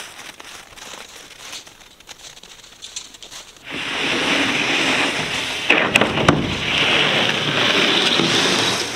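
A large siding panel sliding across a cargo trailer's floor and ramp: a loud steady scraping for about five seconds, with a few sharp clicks in the middle. Before it, a few seconds of faint rustling.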